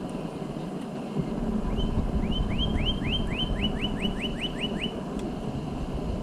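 Northern cardinal singing: a run of about a dozen clear, downslurred whistles repeated quickly, a little faster toward the end, over a low steady background rumble.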